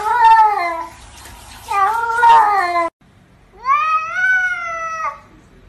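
Domestic cats meowing: two wavering meows, then, after an abrupt cut, one long drawn-out meow that rises and then slides down, heard as a cat saying "I love you".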